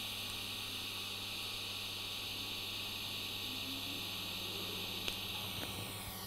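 DC TIG welding arc on stainless steel, setting a tack weld without filler wire: a steady hiss with a low hum underneath, easing slightly near the end as the arc shuts off.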